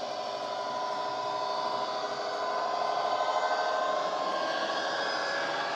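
Bachmann Class 66 model locomotive's ESU LokSound decoder playing a modified Class 66 diesel sound through a small tablet speaker: the engine running with a whining tone that rises slightly, growing louder toward the end as the model approaches.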